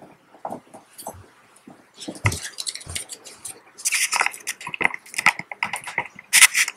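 Handling noises close to the microphone: scattered clicks, knocks and rustles, with a dull thump about two seconds in and a louder flurry of clatter near the end.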